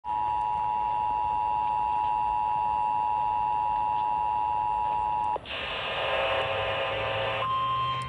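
Emergency Alert System two-tone attention signal from a weather radio's speaker, held steady for about five seconds. It is followed by about two seconds of hissy, static-like noise and then a single steady, slightly higher tone. Together they signal the start of a flash flood warning.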